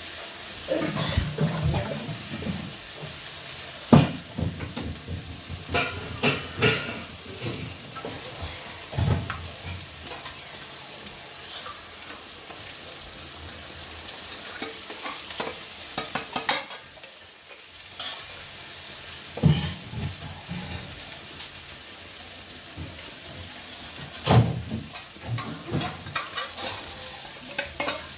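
Spice masala frying in hot oil in a pan, with a steady sizzle, while a metal spatula stirs it and scrapes and clinks against the pan in short bursts.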